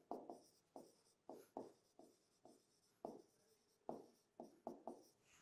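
A pen writing on a whiteboard: about a dozen short, separate strokes as a line of handwriting is put down.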